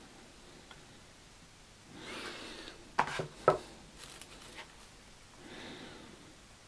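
Mounted card photo prints being handled in a pine presentation box packed with wood-wool shavings: a rustle of card against the shavings, then two sharp taps about half a second apart, then another softer rustle near the end.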